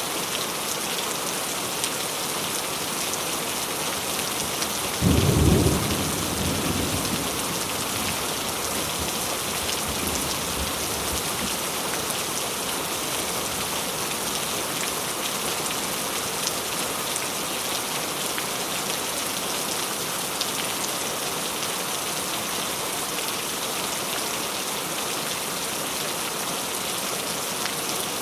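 Steady rain falling, with a sudden clap of thunder about five seconds in that rumbles away over the next few seconds.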